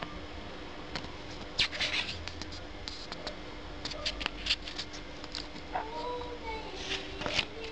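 Paper crackling and rustling in short clusters as a CD lyrics booklet is handled and its pages unfolded. About six seconds in there is one short pitched call that rises and falls, under a faint steady hum.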